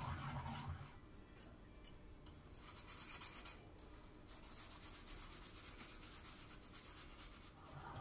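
Raw nagaimo (Chinese yam) being grated: it is rubbed against the ridged inside of a ceramic suribachi mortar, then scraped in strokes on the fine side of a grater.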